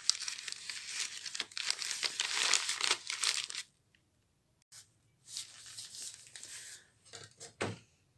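Brown paper bag crinkling as it is squeezed and twisted shut around the top of a glass jar. It comes in two spells with a short pause between them, and there is a low knock near the end.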